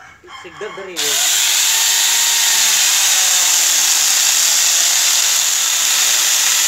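Electric angle grinder fitted with a chainsaw bar-and-chain attachment switches on about a second in and runs loud and steady while its chain cuts into a log.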